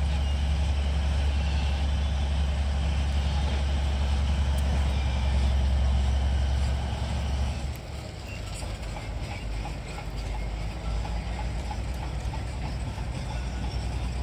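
Low, steady drone of a vehicle engine, which drops noticeably in level about seven and a half seconds in and carries on quieter, with faint scattered clicks.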